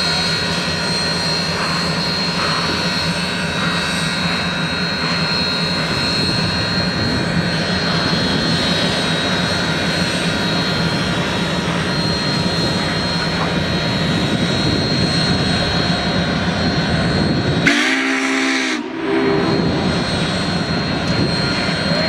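Union Pacific 844's steam-hauled passenger train rolling slowly past: a steady rumble and hiss. About 18 seconds in the rumble briefly drops away and a short pitched sound is heard.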